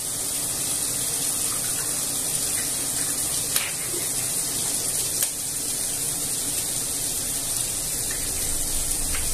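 Steady hiss of chorizo, peppers and onion frying in olive oil in a frying pan, mixed with a running extractor fan. About three and a half seconds in and again near five seconds there are two sharp taps as eggs are cracked against a glass bowl.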